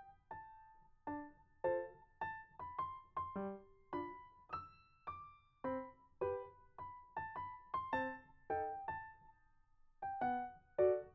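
Background music: a gentle keyboard melody of separate struck notes, each dying away quickly, about two notes a second.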